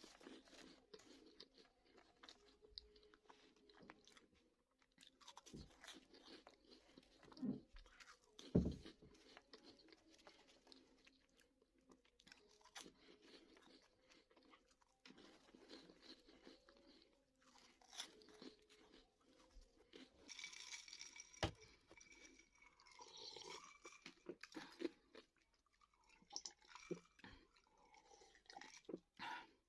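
Someone chewing crunchy Bozo corn-puff balls, a faint, irregular crunching with a louder crack about eight seconds in.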